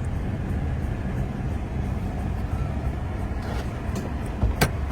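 Steady low rumble of vehicles at road speed, with a single sharp click about four and a half seconds in.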